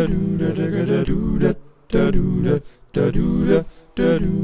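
Unaccompanied vocal music: a voice chanting or singing a short phrase over and over, each phrase about a second long with brief breaks between.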